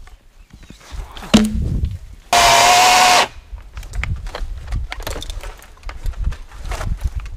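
Milwaukee M18 FUEL battery top-handle chainsaw, a brushless electric saw, run in one short steady burst of about a second, starting and stopping abruptly. Around it are rustling cedar branches, a sharp knock shortly before, and light clicks of handling.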